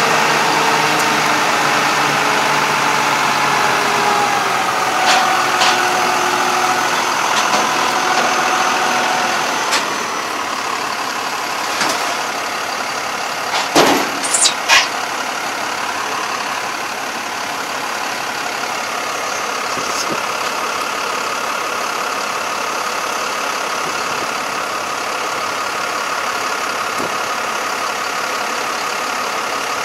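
Diesel engine of a rough-terrain crane running, its pitch sinking slowly over the first several seconds before it settles to a steady idle. Around the middle a quick cluster of clanks and a brief high squeal stand out above the engine.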